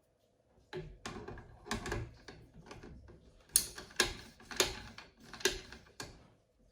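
Sharp mechanical clicks and knocks of rifle parts being handled on a bench: a few softer ones, then five loud sharp clicks about half a second apart in the second half.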